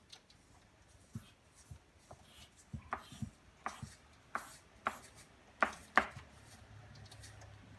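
Drawing on paper by hand: a series of irregular sharp taps and short scratchy strokes, the loudest about six seconds in.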